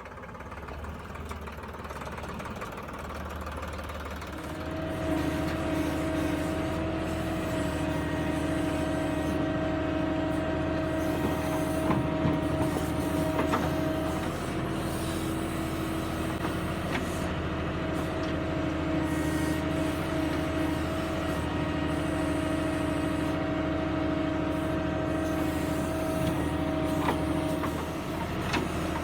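Tractor diesel engine running up over the first few seconds and then holding a steady high speed under load, with a steady whine over the engine note.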